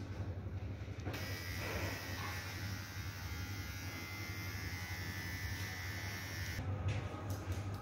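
Cordless electric hair clipper buzzing as it trims a child's hair at the nape. It starts about a second in and cuts off sharply about a second before the end, followed by a few light clicks.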